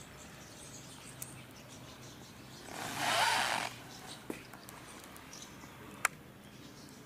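Faint handling noise: a brief rustle lasting about a second around the middle, and a few light clicks, the sharpest one near the end.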